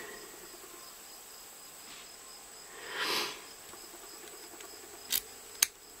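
Quiet handling of a padlock and its key on a key ring: a soft swell of noise about halfway, then two sharp clicks near the end as the key is brought to the lock.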